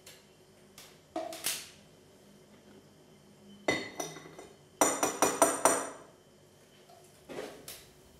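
Small metal mesh strainer clinking against a porcelain plate, with a quick run of about six taps in the middle, as it is knocked to shake sieved insects out onto the plate.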